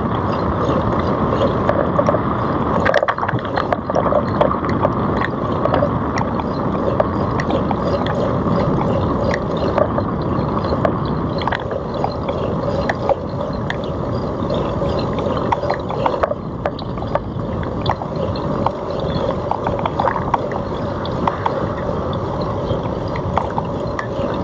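Wind buffeting the microphone of a camera on a moving bicycle, a steady rushing noise, with scattered clicks and rattles from the bike riding over the path.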